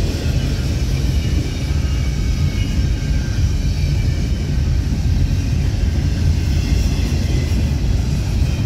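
Double-stack container freight train rolling past close by: a steady, loud rumble of steel wheels on the rails under the loaded well cars.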